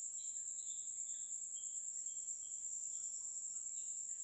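A steady, faint high-pitched whine with soft, irregular chirps under it, and no speech.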